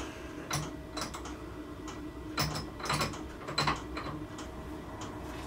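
Irregular metallic clicks, clinks and light knocks as steel hand tools and workpiece parts are handled at a milling machine, over a faint steady machine hum.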